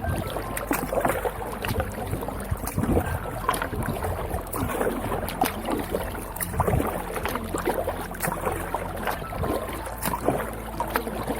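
Water lapping and sloshing against the plastic hull of a Viking Profish 400 sit-on-top fishing kayak, a steady run of small irregular splashes, with light wind on the microphone.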